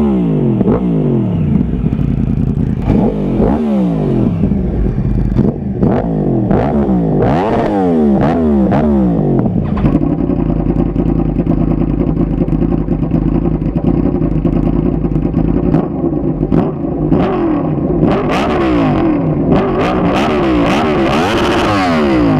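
Yamaha R1's crossplane inline-four through an aftermarket exhaust, free-revved at standstill: a string of quick throttle blips, each falling back in pitch, then a steady idle for several seconds, then more blips with one high rev near the end.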